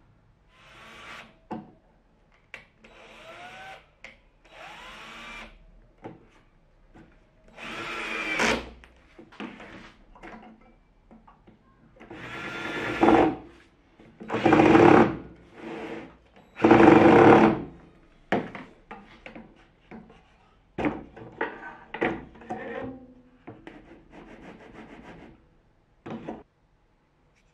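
Cordless drill driving screws into plywood in several separate runs of about a second each, the loudest around the middle, with shorter runs in the first few seconds whose whine rises in pitch as the motor spins up. Short handling knocks and clicks come between the later runs.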